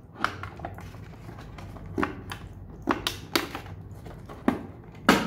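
A plastic wireless charging car phone mount being worked out of the moulded insert of its box: irregular clicks, knocks and scrapes of plastic and packaging, the loudest knock near the end.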